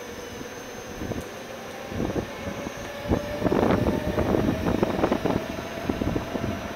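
Ride noise of an electric tourist road train: a motor whine rising slowly in pitch as it gathers speed, with an irregular rattling and knocking that grows louder from about two seconds in.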